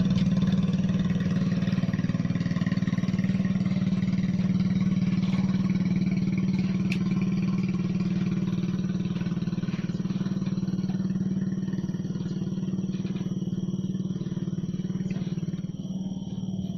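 A small engine running steadily at a constant speed with a strong low hum, fading slightly near the end.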